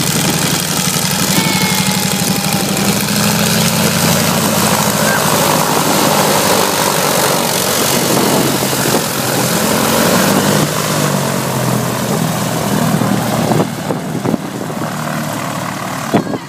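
Boeing Stearman biplane's radial engine and propeller running as it taxis past, loud and steady, growing somewhat quieter near the end as it moves away.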